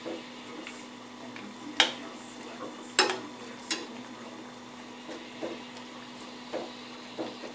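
Metal spoon clinking against a small nonstick pan while stirring dried apricots and raisins simmering in sugar syrup. Several sharp clinks, the loudest about two and three seconds in and softer ones later, over a steady low hum.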